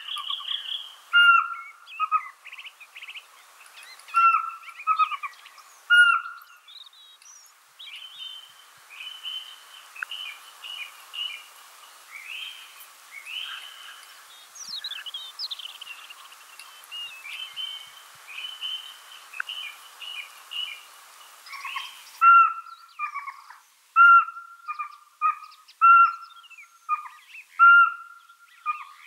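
Pygmy owl calling: clusters of short whistled notes repeated about once a second, with a higher, quicker series of notes in the middle stretch.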